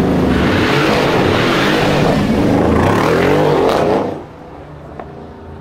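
Mercedes-Benz CLS63 AMG's 5.5-litre twin-turbo V8 accelerating hard under full throttle, loud and rising in pitch. A little after four seconds in it drops away sharply to a much quieter engine sound.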